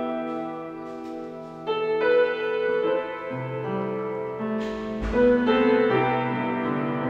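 Solo piano playing a slow piece: held chords and a melody, softer for the first second and a half, then new notes struck about every half second with a low bass line moving underneath.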